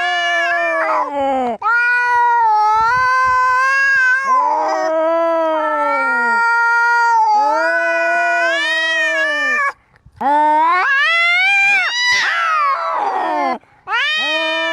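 Angry cat caterwauling: a string of long, drawn-out yowls, each about two seconds, wavering up and down in pitch with short breaks between them. A rougher, falling yowl comes near the end.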